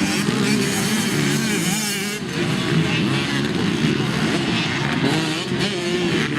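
Several motocross dirt bike engines revving up and down, their pitches overlapping as the bikes race around the track.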